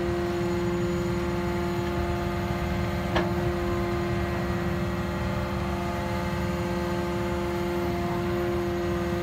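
Engine and hydraulic power unit of a static pile-pressing rig running steadily, a constant hum with a held whine. A single sharp metallic knock about three seconds in.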